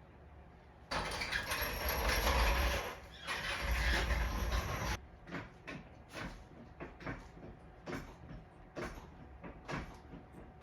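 Metal jack stands dragged across the garage floor in two long scrapes, then a string of light clicks and knocks, about one or two a second, as they are set in place under the car.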